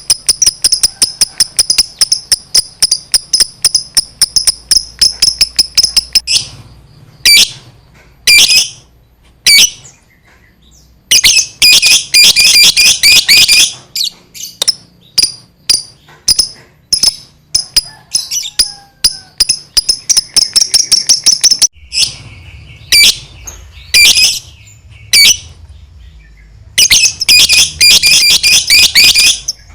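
Lovebird 'ngekek': a rapid, high-pitched chattering trill. It runs unbroken for about six seconds, then comes back in shorter bursts of one to three seconds with pauses between. This is the long ngekek sung to provoke other lovebirds into answering.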